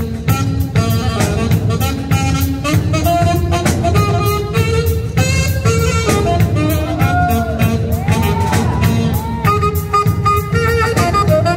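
Live jazz band: a saxophone plays a melody over a steady drum-kit beat, with a few sliding notes about eight seconds in.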